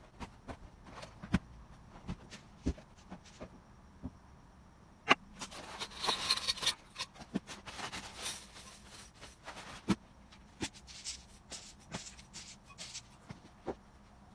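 Dry flakes poured into an empty glass blender jar: a rustling patter that starts about five seconds in and lasts a second or two, with lighter bursts of pouring later on. Scattered clicks and knocks of handling come before and after.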